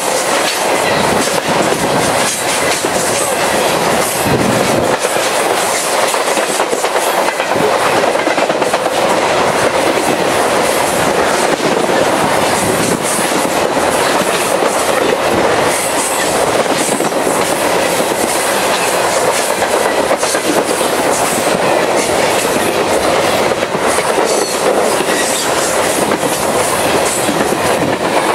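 CSX freight train's boxcars and refrigerated cars rolling past close by: a loud, steady rumble and rattle of steel wheels, with clickety-clack over the rail joints. The last car goes by at the very end.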